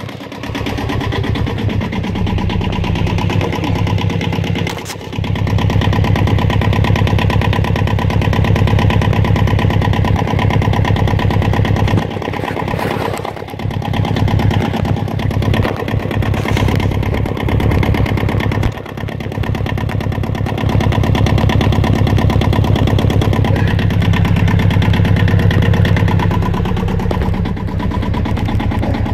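Yanmar 2GM20 two-cylinder marine diesel engine running steadily while being test-run after a service, a fast, even chug of firing pulses. The level dips briefly a few times, around the 5-, 13- and 19-second marks.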